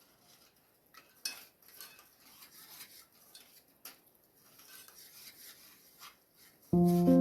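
Soft scraping and clinking of a utensil against cookware, with a sharper clink about a second in. Loud background music starts suddenly near the end.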